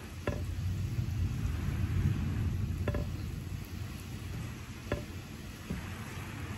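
Steady rain with a low rumble of thunder that swells about a quarter second in and fades away over the next few seconds. Three sharp drip-like ticks land about two seconds apart.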